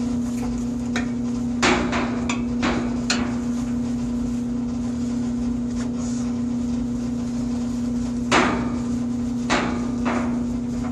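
A series of sharp knocks and taps, about seven of them, in two clusters, over a steady low hum.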